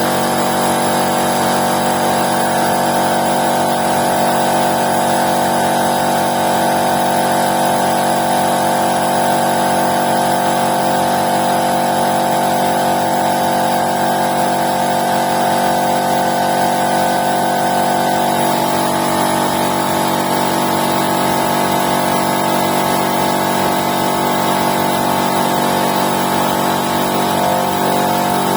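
Oil-lubricated piston air compressor, driven by a 2.2 kW electric motor, running steadily as it pumps up its tank after restarting under pressure. It now starts and runs normally after its stuck stator-winding changeover relay was cleaned.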